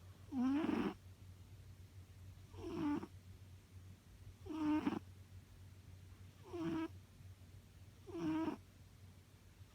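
Domestic cat snoring in its sleep: a short pitched snore with each breath, about one every two seconds, five in a row.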